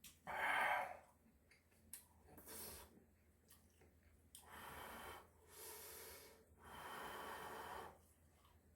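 A person's breaths, sharp and hissing: a loud one at the start, two short ones a couple of seconds in, then three long breaths of about a second each in the second half.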